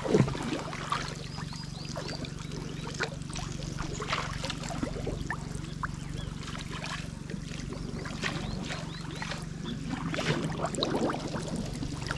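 Water sloshing and splashing in irregular small bursts, as of people wading through shallow water, over a steady low hum.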